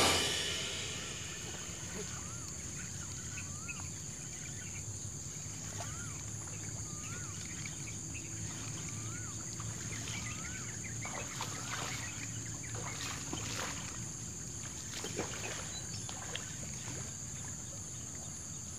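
Riverbank background: a bird repeats a short rising-and-falling whistle about once a second over a steady high insect drone. Scattered clicks and rustles follow in the second half.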